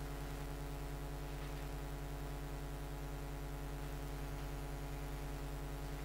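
Steady low electrical hum with a buzz over a faint hiss; it does not change.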